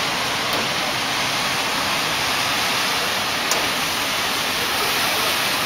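Steady rushing of floodwater running across a street.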